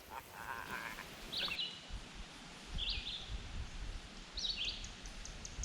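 Three short, high-pitched animal calls about a second and a half apart, over faint background noise.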